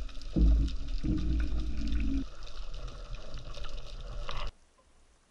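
Underwater action-camera sound of a spearfisher handling a speared fish: low rumbling water movement and gurgling, loudest in the first two seconds, cutting off suddenly about four and a half seconds in.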